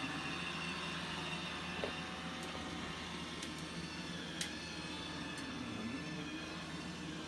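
Roomba 900 series robot vacuum running, a steady whirring hum of its motor and brushes, with a few faint ticks.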